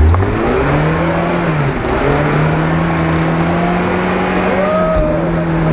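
Lada Niva's engine held at high revs under load as the car climbs out of a deep muddy rut, the pitch dipping briefly about two seconds in and then holding steady.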